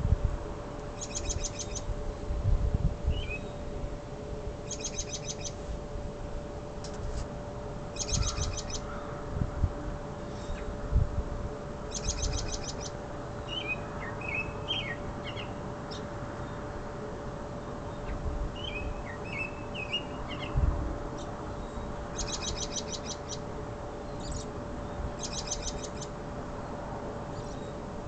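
Songbirds singing. A short, fast, high trill repeats every three to four seconds, and a second bird gives scattered lower chirps around the middle. Low thumps and a faint steady hum lie underneath.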